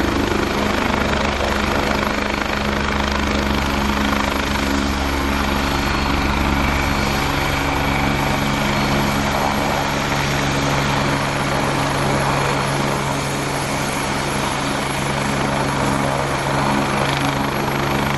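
Helicopter running loud and steady: its rotor and engine make a continuous rushing noise with low steady tones underneath.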